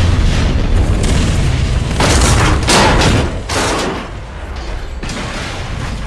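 A big explosion rumbling on, deep and loud, with several further sharp blasts about two to three and a half seconds in and another near the end.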